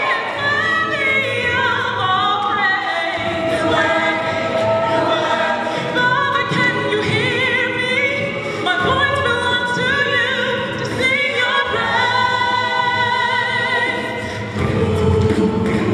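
Mixed-voice a cappella choir singing a gospel song in harmony, many voices together without instruments.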